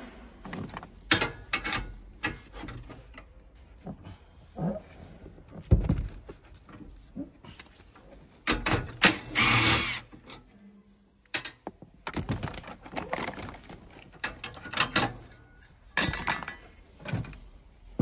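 Scattered clinks and knocks of sockets and tools against the hybrid battery pack's metal fittings, with a cordless power driver running for about a second around nine seconds in.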